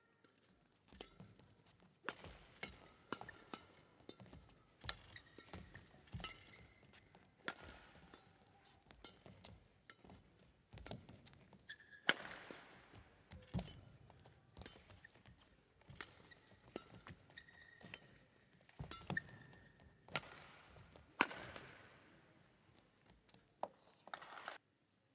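Badminton rally: rackets striking the shuttlecock in sharp, irregular cracks, a few much louder hits like smashes, with shoes squeaking and footsteps on the court floor between shots.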